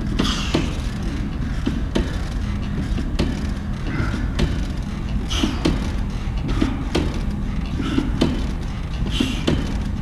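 Sit-ups on a padded decline bench: sharp knocks and clicks from the bench about once a second and short breathy exhales every few seconds, over a steady low rumble.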